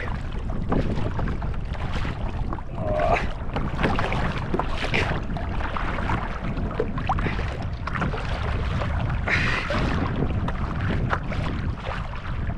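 Wind buffeting the microphone over water lapping and slapping against a plastic fishing kayak's hull on open sea, with scattered short clicks and splashes.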